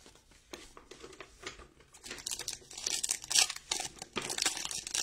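Foil wrapper of a trading-card pack being torn open and crinkled by hand. It starts about two seconds in and gets louder toward the end.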